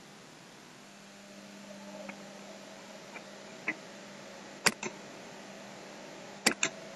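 Faint steady electrical hum picked up by the recording microphone, with a few sharp computer-mouse clicks, the loudest coming as two quick pairs in the second half as slides are selected.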